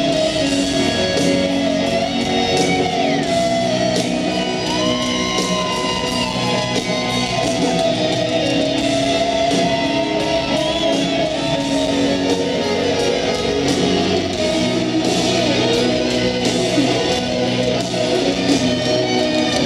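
Live rock band with a lead electric guitar playing a solo of sustained, bending notes over the rest of the band, heard from the crowd in a stadium.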